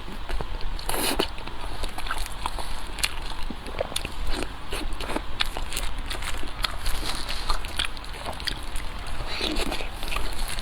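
Close-miked eating: chewing and mouth sounds with many small clicks and crackles throughout.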